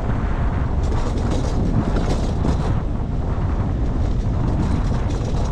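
Wind rumbling across the microphone of a camera on a moving bicycle, a steady low buffeting with road noise. There are stretches of brighter hiss about a second in and again near the end.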